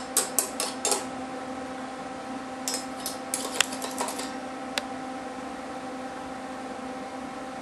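A hand tool scraping and chipping weld spatter off a small welded steel-rod figure: quick runs of sharp metallic clicks and scrapes in the first second and again about three to four seconds in, then a single click. A steady low hum runs underneath.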